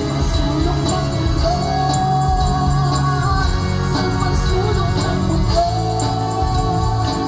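Band music with a steady beat, a bass line and jingling tambourine-like hits, a held melody line above.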